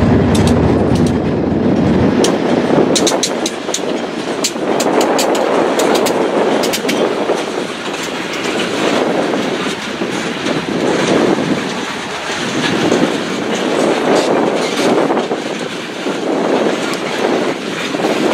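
Long string of railroad tank cars rolling past, wheels clattering over the rail joints in slow swells, with a run of sharp clicks a few seconds in. A low locomotive rumble fades out within the first two seconds.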